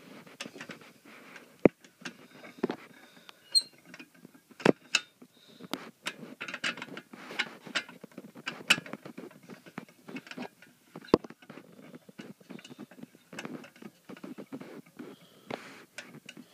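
Irregular clicking, tapping and scraping of a fire alarm pull station being handled and reset by hand, with three sharper snaps about 2, 5 and 11 seconds in.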